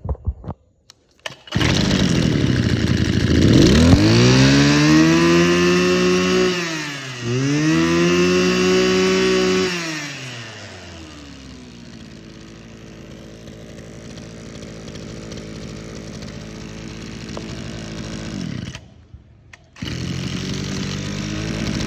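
Mitsubishi TL261 brush cutter's two-stroke engine pull-started, catching about a second and a half in. It is revved high twice, drops to a steady idle, stops a little before the end and is started again, running faster to the end.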